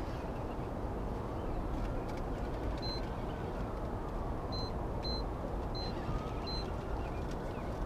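A steady low rumble, with five short, high electronic beeps starting about three seconds in.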